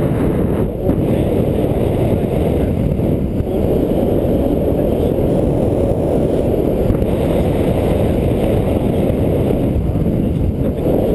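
Steady, loud rush of wind buffeting the camera's microphone in flight: a dense low rumble with no pauses.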